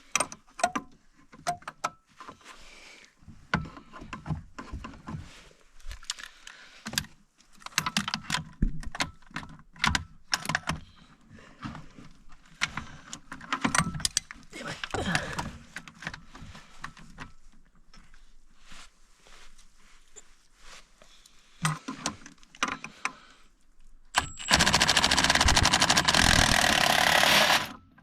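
Clinks and knocks of tools and parts being handled during disassembly work, then near the end a loud, steady hiss lasting about three seconds that stops abruptly.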